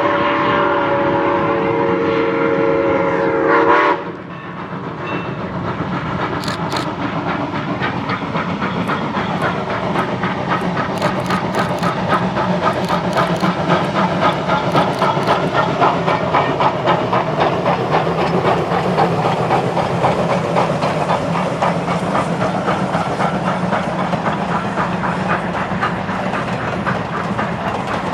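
Steam locomotive whistle blowing a chord, which cuts off sharply about four seconds in. A steam train then runs past with a fast, regular clatter that grows louder.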